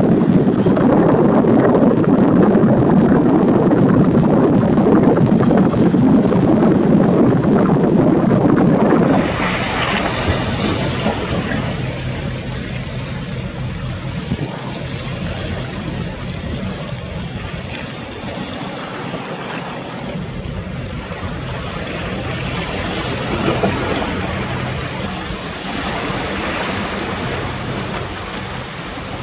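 Wind buffeting the camera microphone by the sea: a loud, low rumble for about the first nine seconds, then a softer, hissing wash of wind and surf.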